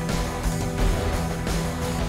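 Background music: driving rock with electric guitar and a steady beat.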